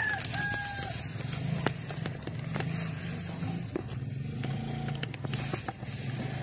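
Scattered light clicks and taps of a plastic idle air control valve being worked into its bore by hand, over a steady low mechanical drone. A rooster's crow trails off in the first second.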